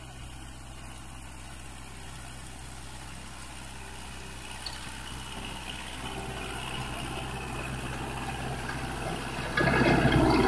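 Kubota MU4501 tractor's four-cylinder diesel engine running steadily under load while its KRMU151D rotary tiller churns through paddy stubble. The sound grows louder throughout, and near the end the tiller's noise suddenly gets much louder.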